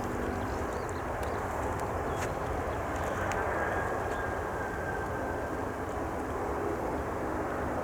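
Jet airliner engines running, a steady rumble with a faint whine held over it.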